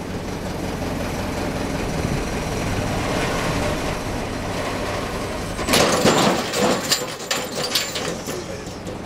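A hydraulic crane's engine runs steadily while its boom loads a Hilti HST M8x75/10 expansion anchor set in rock. About six seconds in there is a sudden crack and a couple of seconds of rattling and clattering as the anchor fails under about 2310 kg.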